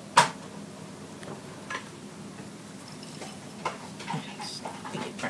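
One sharp click, then scattered light taps and clicks as a hot glue gun and foam planet models are handled and pressed down onto a cardboard board.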